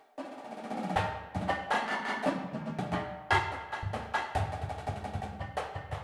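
Marching drumline cadence at about 115 beats a minute for snare drums, tenor drums and bass drums. A run of fast snare and tenor notes grows louder over the first second, the bass drums come in about a second in, and accented hits and syncopated figures follow across the whole battery.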